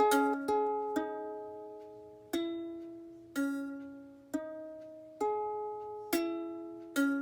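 Ukulele being plucked, one chord or note cluster at a time, roughly once a second with uneven spacing. Each is left to ring and fade before the next.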